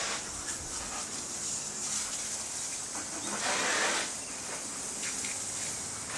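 Young Jamaican owl giving hoarse hissing calls, the loudest about three and a half seconds in, over a steady high hiss.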